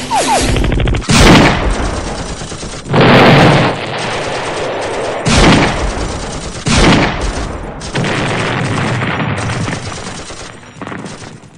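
Battle sound effects: machine-gun fire with about five heavy blasts of gunfire, each with a decaying rumble. The sound fades out near the end.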